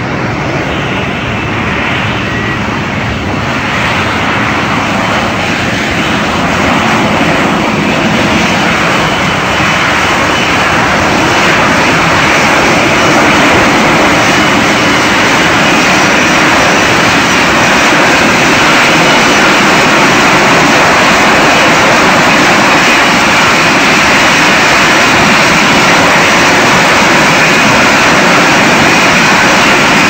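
F-35B jet engine and lift fan in a vertical-landing hover: a loud, even jet rush that builds over the first ten seconds or so as the aircraft comes in, then holds steady while it hangs over the deck.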